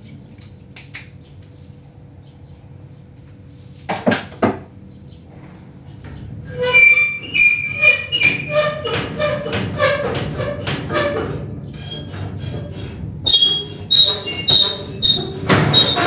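Rusty iron garage door's lock mechanism being worked by hand: two knocks, then a long run of high, creaky metal squeaks, with sharper squeals and clanks near the end.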